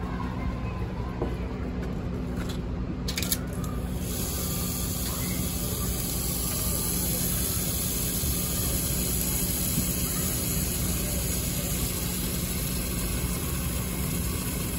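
Tap water pouring in a steady stream into a plastic tub, a splashing rush that sets in about three seconds in after a couple of clicks, over a steady low hum.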